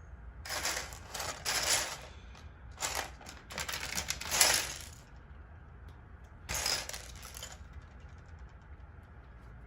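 Loose plastic LEGO pieces clattering as they are sorted through by hand, in three bursts of rattling with short pauses between them, the loudest about four and a half seconds in.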